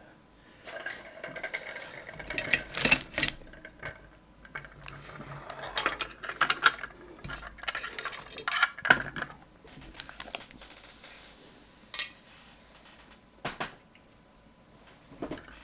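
Small metal parts clinking and rattling in irregular bursts as a pin-tumbler lock and its picking tools are handled, with one sharper ringing click about twelve seconds in.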